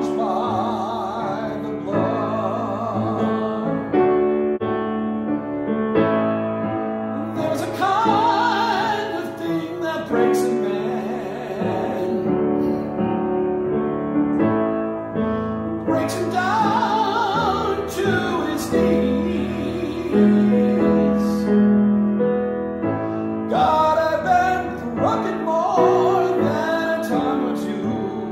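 A solo voice singing a worship song with vibrato, accompanied by grand piano.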